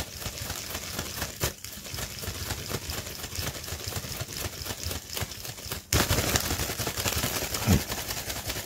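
Rubber-powered ornithopter flapping in the hand: its clear plastic-film wings rustle and crinkle, and the bamboo frame and crank tick rapidly and unevenly. The flapping is slow, as the rubber motor is short of power. The sound gets suddenly louder about six seconds in.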